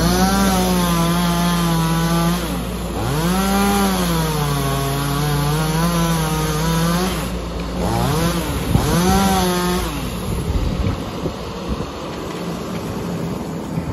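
Bobcat E10 mini excavator working a hydraulic selector grab: a pitched whine from the engine and hydraulics rises as the hydraulics take load, holds, and drops away, four times over the first ten seconds, over the machine's steady running hum. In the last few seconds the whine is gone and an irregular rustling and snapping takes over as the grab tears conifer shrubs out.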